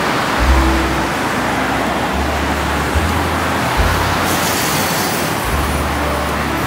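City street traffic noise, under music with a low bass line whose notes change about once a second.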